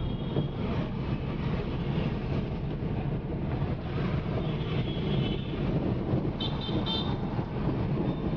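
Steady car engine and road rumble heard from inside a moving car in city traffic, with high-pitched vehicle horns tooting around 4 to 5 seconds in and again briefly about 6.5 seconds in.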